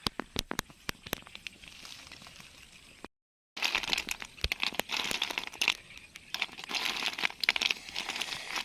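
Crinkling, crackling handling noise with scattered sharp clicks, denser after a brief dropout about three seconds in.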